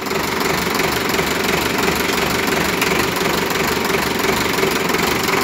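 Sonalika DI-750 III RX tractor's diesel engine running steadily. Its sound picks up right at the start as the throttle is raised, with the tractor put in the factory first low gear.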